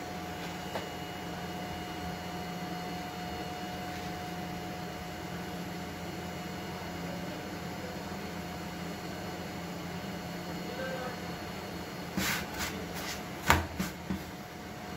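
Steady kitchen hum with a few faint fixed tones, like a fan or appliance running. About three seconds before the end comes a short cluster of sharp taps and knocks, the loudest near the end, as a hand presses and handles the roti on the iron tawa.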